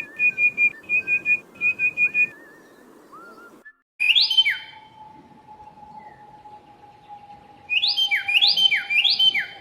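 Birds calling. First comes a quick series of short, high repeated notes in groups of three or four. After a brief break there are loud whistled calls that slide downward, repeated four times near the end, over a steady faint tone.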